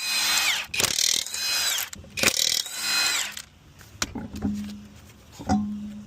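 A power tool runs in three short bursts, each ending in a falling whine as it winds down. A few light clicks and knocks follow.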